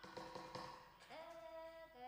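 Faint singing: a voice holds one note, then slides up into a higher held note about a second in.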